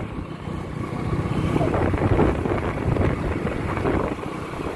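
Hero Honda CD100's small single-cylinder four-stroke engine running steadily while the motorcycle is ridden.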